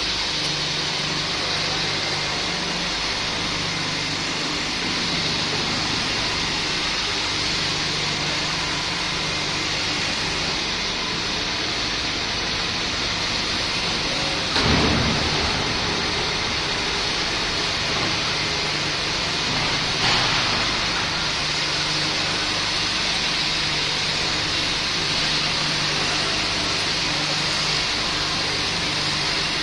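Red bench motor running steadily, its spinning tool head working against the end of an aluminium-finned tube, giving a continuous hum and hiss. A brief louder knock comes about halfway through, and a smaller one a few seconds later.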